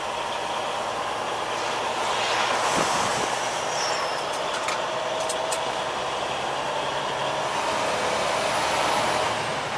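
Steady engine, tyre and wind noise inside a semi-truck cab at highway speed, swelling slightly a couple of times as traffic passes.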